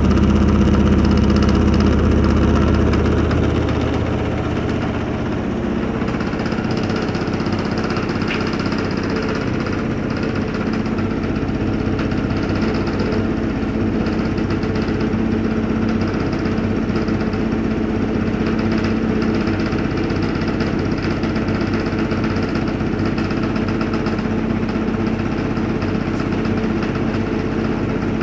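Electrolux EWS1076CI front-loading washing machine running its spin cycle: a steady motor hum with drum vibration. It is a little louder and deeper for the first few seconds, then settles to an even level.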